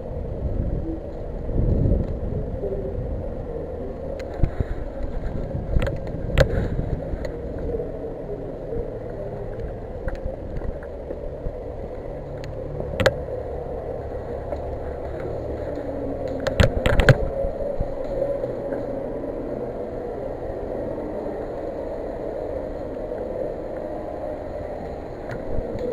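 Steady rumbling noise with a few sharp cracks, including a quick run of several cracks about seventeen seconds in.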